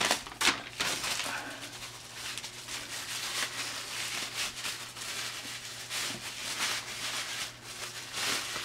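Packaging rustling and crinkling with scattered light taps and clicks as a model is unwrapped and handled by hand, over a faint steady low hum.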